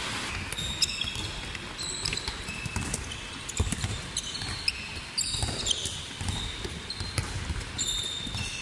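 Handballs bouncing on a wooden sports-hall floor and being caught, with scattered footsteps and brief shoe squeaks as players move through a drill.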